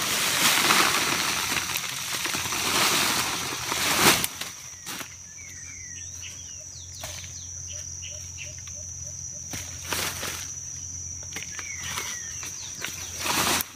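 Outdoor field sounds: about four seconds of loud rustling and scraping that ends in a sharp knock, then quieter, with birds chirping in short rising and falling calls and a few scattered knocks, over a steady high-pitched whine.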